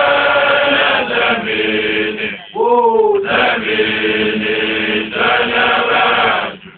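Group of voices in a Xhosa traditional chant, singing long held notes together. Near the middle the group breaks off and a single voice calls briefly, rising then falling, before the group comes back in and stops just before the end.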